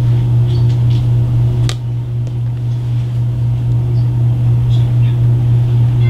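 A loud, steady low hum that runs unchanged, with a faint click about two seconds in.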